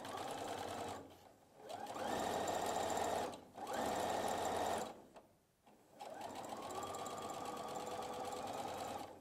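Electric sewing machine stitching through folded binding tape in four runs with short pauses between. Each run starts with a rising whine as the motor speeds up, then holds steady.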